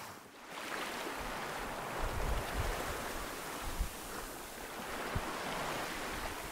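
Choppy sea water splashing and rushing close to the microphone, with wind gusts buffeting the microphone now and then.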